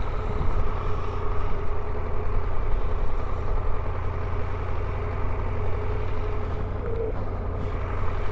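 Steady low drone of a running vehicle, even throughout with no revving or breaks.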